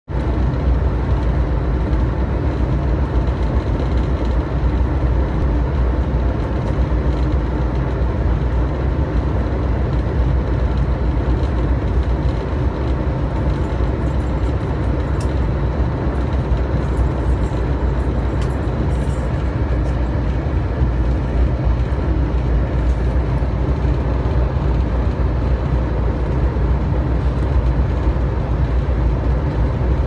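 Steady, loud rumble of a moving train locomotive running along the track, heard from on board at the front of the locomotive.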